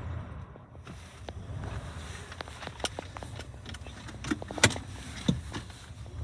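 1960 Bentley S2's 6.2-litre V8 running, heard from inside the cabin, with a scatter of clicks and knocks over it, the loudest a sharp knock about four and a half seconds in.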